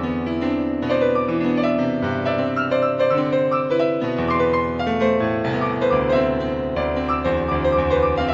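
Background piano music: slow melodic notes over held bass notes.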